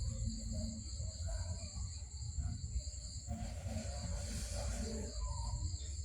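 Steady high-pitched insect chirring that runs unbroken, over a constant low rumble.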